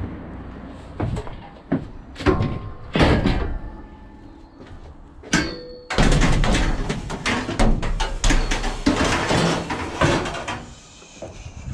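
Scrap metal being loaded and shifted in the back of a van: a few knocks, then one metal clang that rings briefly about five seconds in, followed by several seconds of dense clattering and rattling of metal pieces that dies down near the end.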